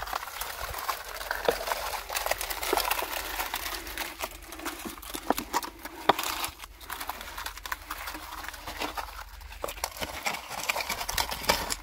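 Wet concrete poured from a metal bucket into a steel ring mould: a gritty scraping of the mix with many small clicks and knocks of gravel and the bucket rim against the frame.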